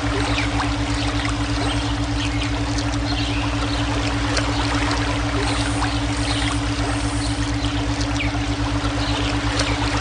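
Flowing stream water, splashing and trickling steadily, layered with a steady low brainwave hum that pulses rapidly and evenly.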